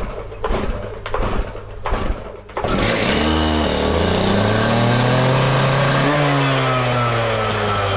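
Knocks and clatter of handling, then from about two and a half seconds in a machine's engine running loudly and steadily, its pitch rising, dipping once and slowly falling.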